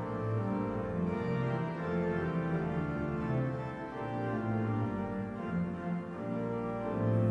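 Church organ playing a hymn in held chords that change every second or so.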